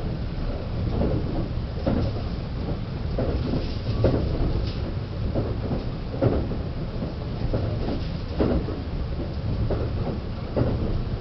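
Limited Express Azusa train running at speed, heard from inside the car: a steady low rumble with repeated clacks of the wheels over rail joints every second or two.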